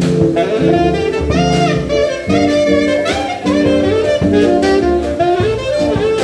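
Taiwanese-made alto saxophone with a DD Peng mouthpiece playing a jazz melody with bends and slides, over a band accompaniment of bass line, keyboard and drums.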